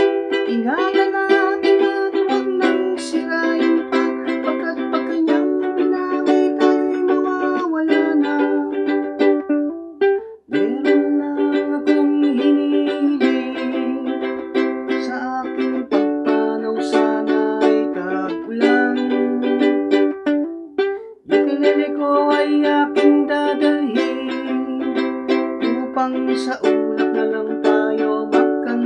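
Ukulele strummed in a steady rhythm through a G, Em, C and D chord progression, the chord changing every couple of seconds, breaking off briefly twice.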